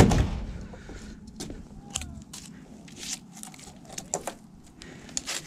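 A heavy fishing magnet thuds down onto wooden dock boards, followed by a scatter of light clicks and taps.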